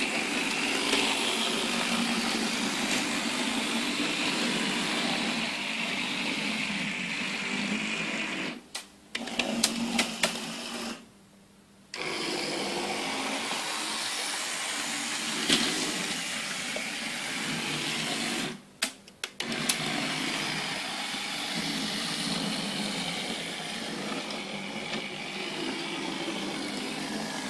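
Analog model trains running on the layout: the small electric motors whir and the wheels roll over the track as a steady whirring. It drops out briefly a few times, and goes almost silent for about a second near the middle.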